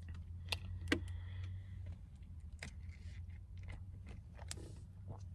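Sharp clicks and knocks of a plastic cup of iced drink being handled and sipped from. A steady low hum fills the car cabin underneath.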